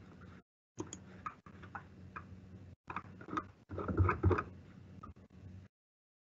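Faint clicks and soft handling noises picked up by a video-call microphone, with a slightly louder rustle about four seconds in; the line cuts to dead silence twice as the call's noise suppression closes.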